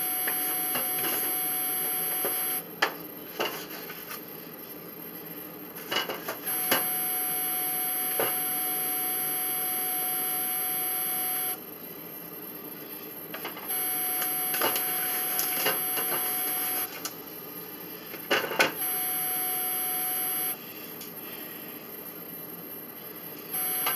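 A steady electrical hum with a high whine that switches on and off abruptly several times, each stretch lasting a few seconds, with a few light clicks and knocks in between.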